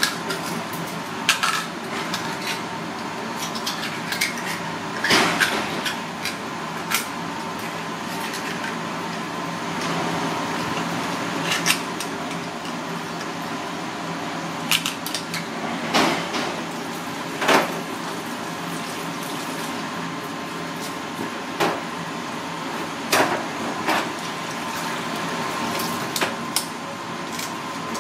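A knife blade clicking and scraping against the ribbed shells of red clams as they are pried open and shucked, in irregular sharp clicks. Tap water runs steadily into a stainless steel sink underneath.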